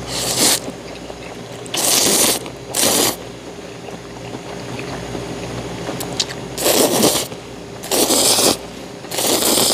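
A person slurping ramen noodles off chopsticks: a string of about six short, loud slurps with quieter pauses between them.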